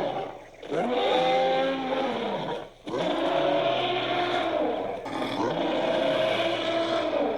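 Film-style dinosaur roar sound effect: three long, pitched bellowing calls in a row, each rising at the start and sliding down at the end.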